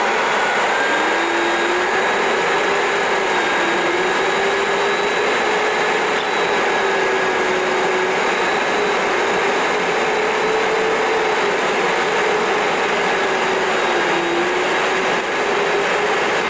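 Cabin noise of a Boeing 737-900ER on final approach: a steady rush of airflow and engine hum from its CFM56 turbofans, with a low tone that wavers slightly up and down and fainter steady higher tones.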